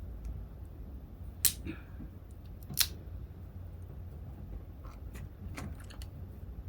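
Crab shell being cracked apart while eating: two sharp cracks about a second and a half in and again a second later, then a few lighter clicks near the end.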